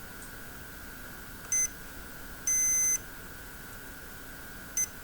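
Electronic beeps from a test instrument used to check a freshly soldered tiny SMD LED: a short beep about one and a half seconds in, a longer half-second beep a second later, and another short beep near the end.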